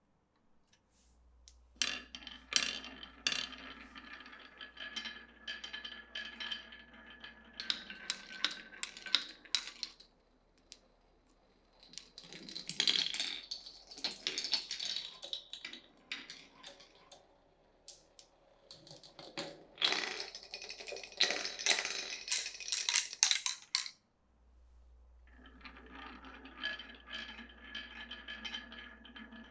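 Glass marbles rolling and clattering down a wooden marble run, a busy rattle of clicks and knocks that comes in four runs with short pauses between them.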